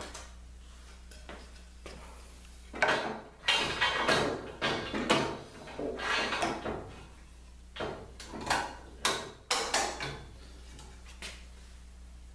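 Metal clattering and rattling as aluminum extrusions are pulled out and handled: a run of irregular knocks and scrapes from about three seconds in until about ten seconds in, over a low steady hum.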